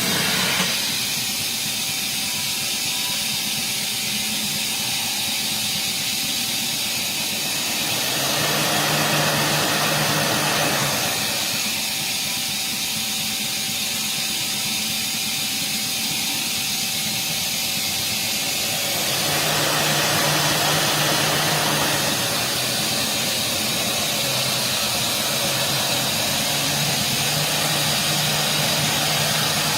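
2007 Mazak QTN 200MY II CNC lathe running: a steady high hiss, with a low hum and a louder wash of noise that come in for a few seconds about eight seconds in and again about nineteen seconds in.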